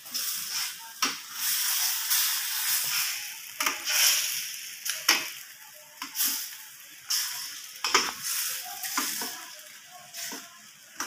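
Chicken curry sizzling in a stainless steel pan while a metal spatula stirs it, scraping and knocking against the pan about once a second over a steady hiss.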